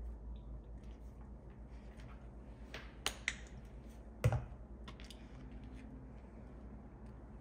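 A plastic honey squeeze bottle being handled over a cutting board: a few small plastic clicks, two close together about three seconds in, then a louder knock a second later, over a low steady hum.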